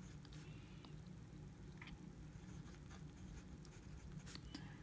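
Faint scratching of a TWSBI Eco fountain pen's fine steel nib on Rhodia paper as a word is written out, in a few short strokes.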